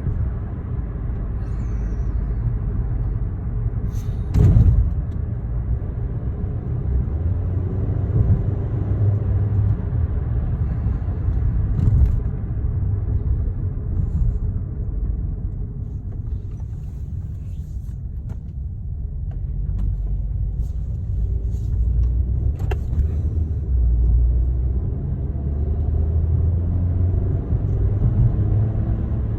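2013 Chevrolet Sonic heard from inside the cabin while driving: a steady low engine and road rumble that swells and eases a little. A sharp knock comes about four and a half seconds in, with a couple of fainter clicks later.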